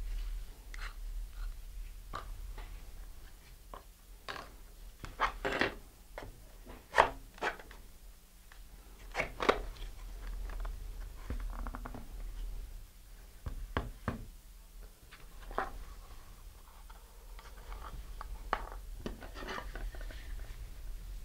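Workbench handling noises: scattered light knocks, taps and scrapes as fiberglass rocket fins and body tube are handled and epoxy is worked with a wooden stick in a paper cup. A few sharper knocks come around the middle, over a low steady hum.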